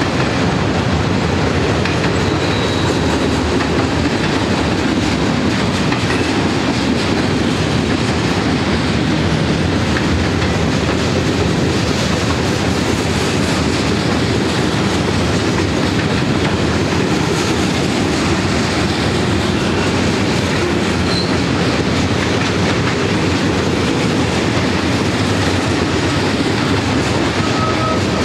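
Freight train cars (tank cars and boxcars) rolling past close by: a loud, steady rolling noise of steel wheels on the rails. A faint high steady tone comes in near the end.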